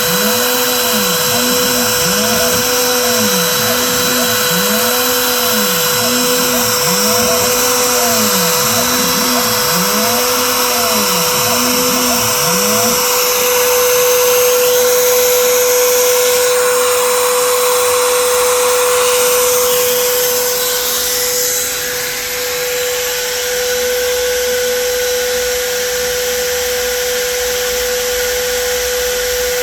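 Makita router spindle on a Shapeoko 5 Pro CNC machine running a cut, a steady high whine over cutting noise. For the first dozen seconds a lower tone sweeps up and down in repeating arcs about every second and a half as the machine moves; then the sweeps stop and only the spindle whine carries on.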